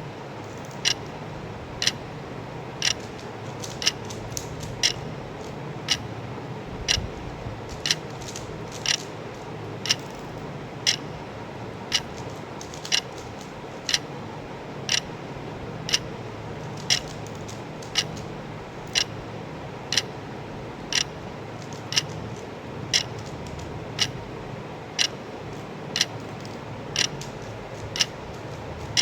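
A clock ticking steadily about once a second over a low steady hum, marking the seconds of the timed attempt.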